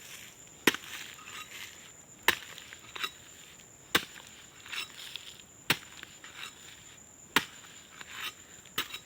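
A hand digging tool chopping into dry ground, six sharp strikes at an even pace of about one every second and a half, with soft scraping of loose earth between them. The strikes loosen the soil of a planting hole for cassava cuttings.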